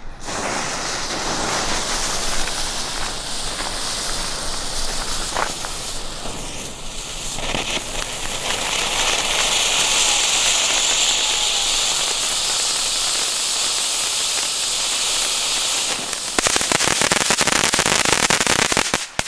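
Small youth-category firework fountains hissing steadily as they spray sparks, getting louder about halfway through. About three seconds before the end they break into a dense, rapid crackle of sharp pops, really loud, which cuts off suddenly.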